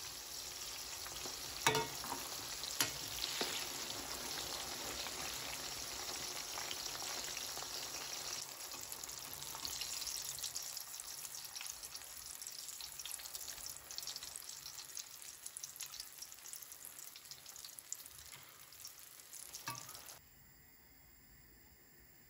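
Brinjal (eggplant) strips sizzling and crackling as they fry in hot oil in a wok, with a couple of sharp knocks a few seconds in. The frying sound cuts off suddenly near the end.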